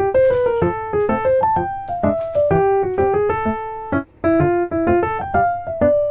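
Background music: a light, bright piano melody of quick short notes.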